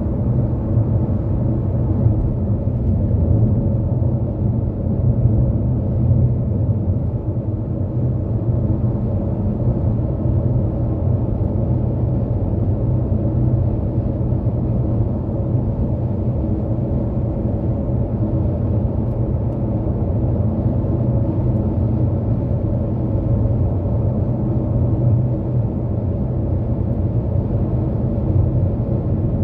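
Steady drone of a car cruising at highway speed, tyre and road noise over the engine, with no change in speed.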